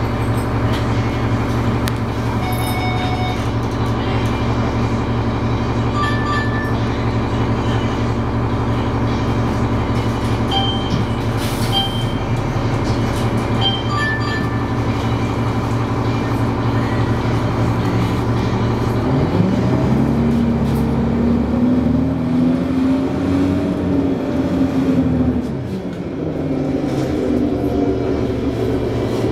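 Cummins ISC inline-six diesel of a New Flyer D40LF city bus, heard from inside the bus. It idles steadily, then revs up as the bus pulls away about two-thirds of the way in, its pitch rising. The pitch drops briefly at an upshift of the Allison automatic transmission, then rises again.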